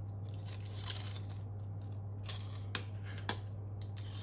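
Small screwdriver prying and scraping at a plastic Cassese nail cartridge, with a few sharp plastic clicks as its ratchet strips are snapped off; the loudest click comes about three seconds in.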